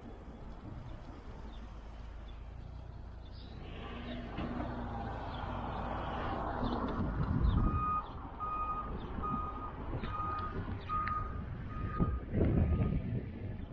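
A vehicle's reversing alarm beeping steadily, about two high beeps a second, starting about eight seconds in, over the rumble of a vehicle engine that swells before the beeping begins.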